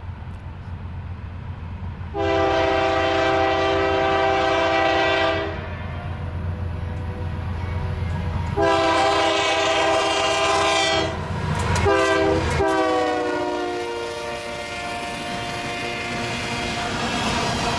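Diesel locomotive air horn sounding two long blasts and then shorter ones, over the low rumble of its engine. This is the long-long-short-long grade crossing signal. The last blast drops in pitch as the AC4400CW passes, and then loaded covered hopper cars roll by on the rails.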